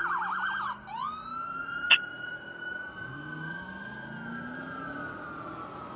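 Fire engine's electronic siren on a fast yelp, switching just under a second in to a long wail that slowly rises and then falls, with the truck's engine revving up underneath. A short, sharp blip about two seconds in.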